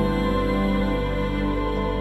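Background music: slow, sustained new-age style chords under the closing footage.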